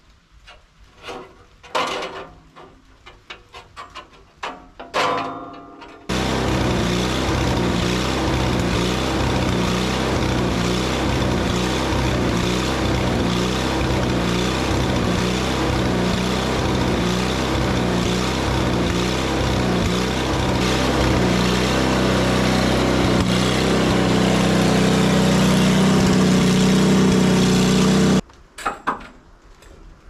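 A portable bandsaw sawmill's motor running steadily for about twenty seconds while the saw head is driven back off the log, leaving the broken blade in the cut. The motor starts and stops suddenly, with a regular pulsing and a slight rise in pitch near the end. Scattered knocks and clanks come before it and after it stops.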